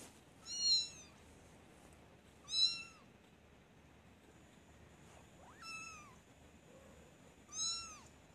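A young kitten mewing four times, short high-pitched mews about two seconds apart, each rising and then falling in pitch; the third is fainter.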